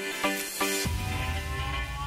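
Background electronic music: a quick run of repeated notes, then a deep bass and a slowly rising synth tone come in just under a second in.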